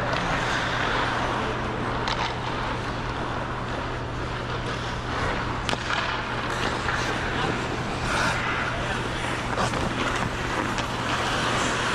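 Ice skate blades gliding and scraping on rink ice: a steady hiss broken by a few short, sharper scrapes, over a steady low hum.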